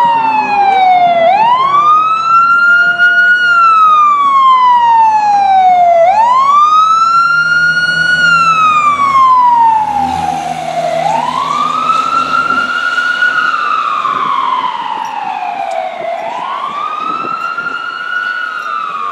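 Fire engine siren in a slow wail, rising quickly and falling slowly about every five seconds, on a 1994 Duplex D500 pumper. The truck's engine rumbles as it passes close about ten seconds in, then the siren drops slightly in pitch and fades as the truck drives away.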